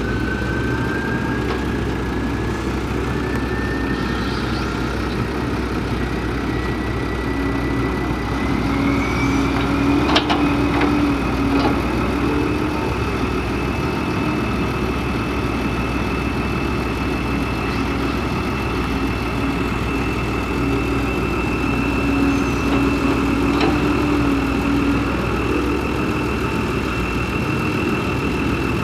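Kobelco excavator's diesel engine running steadily, with a thin high whine that rises slowly over the first ten seconds or so and then holds level. There is one sharp knock about ten seconds in.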